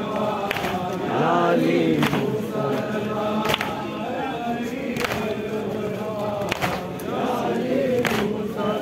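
A crowd of men chanting an Urdu noha, a Shia mourning lament, in unison. A sharp beat keeps time about every one and a half seconds.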